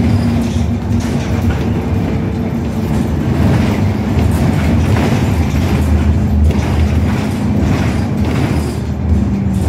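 Bus in motion heard from inside the passenger saloon: the engine running under load with a heavy low rumble, and knocks and rattles from the body and fittings over the road surface.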